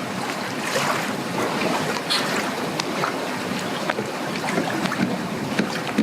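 Strong wind blowing over the microphone, with waves splashing and lapping at the boat ramp and scattered small knocks and taps.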